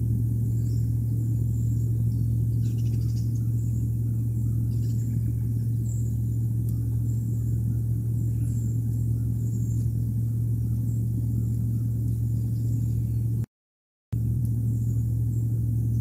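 Steady low hum or rumble, with faint high-pitched chirps scattered over it. The sound cuts out completely for about half a second near the end.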